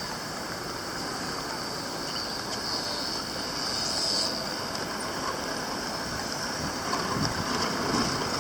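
Outdoor roadside ambience: a steady rush of wind and distant traffic, with a steady high hiss above it.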